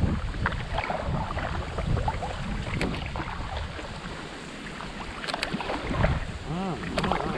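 Sea kayak being paddled: the paddle blades dip in with irregular splashes and drips of water, over a steady low rumble of wind on the microphone.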